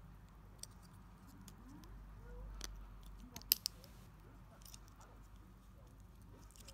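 Small plastic toy parts being handled: faint scattered clicks and rattles, with two sharper plastic clicks in quick succession a little past the middle.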